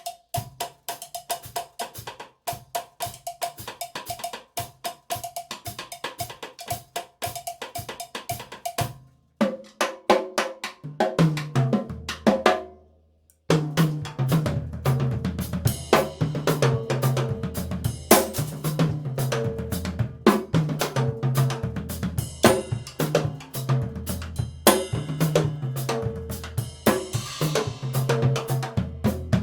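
Yamaha drum kit played with sticks: about nine seconds of fast strokes, a short stop, then a tom fill that steps down in pitch and ends on a low, ringing drum. After a brief silence a groove starts, with the toms ringing at distinct pitches over kick and snare.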